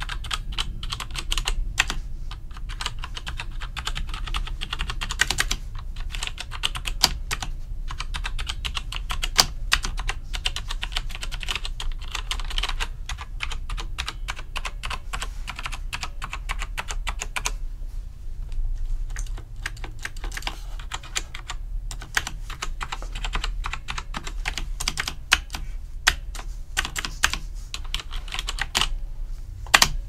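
Typing on a 1STPLAYER Steampunk full-size mechanical keyboard fitted with brown switches: a rapid, continuous run of key clicks and clacks, broken by a few short pauses.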